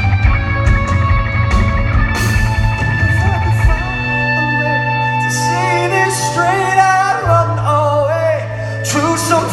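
Live rock band with a male lead singer, heard in a large hall. Drums and guitar play over a heavy low end, then about four seconds in the beat drops away to long held bass notes under a sung line with vibrato. The full band kicks back in near the end.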